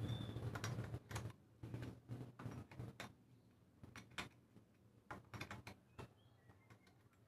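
Scattered light clicks and knocks of metal tools and planer parts being handled, irregular and louder in the first second and a half.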